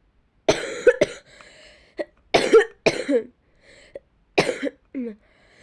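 A girl who is ill coughing in a fit of about six coughs, coming roughly in pairs.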